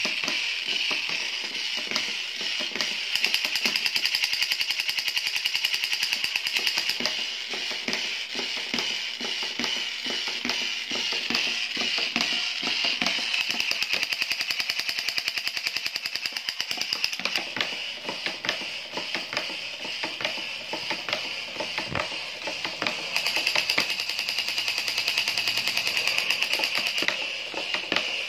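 Battery-operated crawling Captain America toy soldier running, its electronic machine-gun sound effect rattling fast and without a break through its small built-in speaker.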